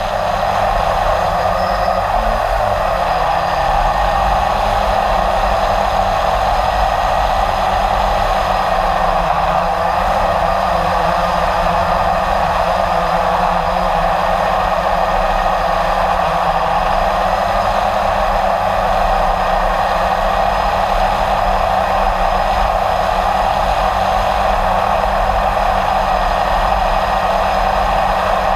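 Blade 350 QX3 quadcopter's four brushless motors and propellers running at a steady pitch, heard close up through the camera mounted on the drone as it flies.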